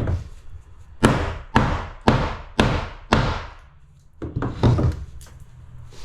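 Hammer driving a nail through a cement sheet into a wall stud: a run of sharp blows about two a second, a pause of about a second, then a few more blows.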